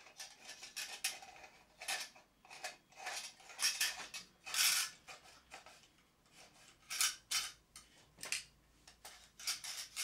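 Miner's safety lamp being handled as its top section is screwed on by hand: irregular light metallic clinks and scrapes, with a longer scrape about halfway through.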